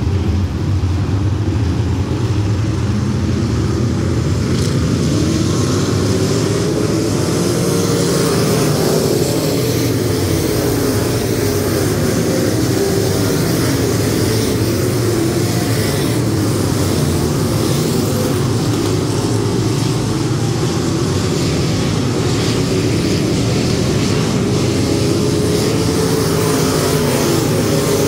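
A field of dirt-track limited modified race cars' V8 engines running laps together, several engines at once, their pitch rising and falling as they accelerate and back off.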